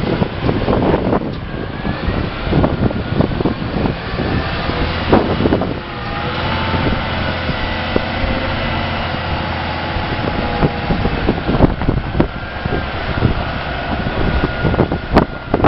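Diesel engine of a 2007 Hino 700 Series concrete mixer truck running, with irregular knocks and rattles and wind noise over the first several seconds. It settles into a steady engine note about six seconds in.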